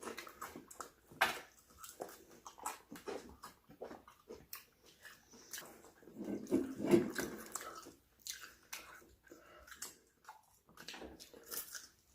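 Close-up eating sounds: irregular chewing, biting and mouth smacking, with a louder, longer mouth sound about six to eight seconds in.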